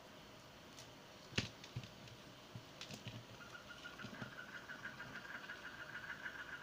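Plastic beads clicking faintly as the beaded piece and its nylon thread are handled, with one sharper click about a second and a half in. From about halfway on, a faint steady high whine sounds beneath the clicks.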